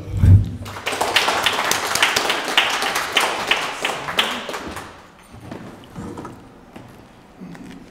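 Small audience applauding for about four seconds, then dying away. It opens with one low thump, the loudest moment, and faint knocks follow near the end.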